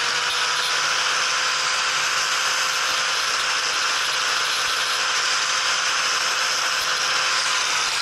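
Electric angle grinder running at steady speed, a steady motor whine over a grinding hiss, its disc held against the freshly cut edge of a handlebar counterweight to take off the burr.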